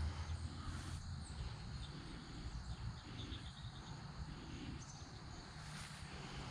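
Quiet outdoor ambience: a low steady rumble with a few faint, scattered bird chirps.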